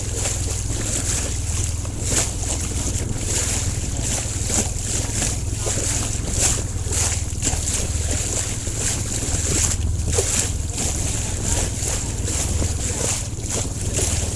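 Wind buffeting the microphone in frequent short gusts over a steady low rumble and a steady high hiss.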